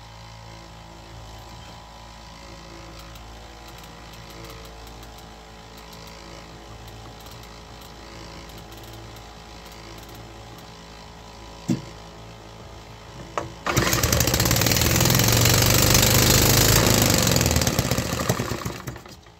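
Homemade 3D-printed single-cylinder fuel-injected petrol engine catching on the first crank about 14 seconds in, running fast and loud for about five seconds, then dying away. Before it starts there is only a steady low hum and a single click.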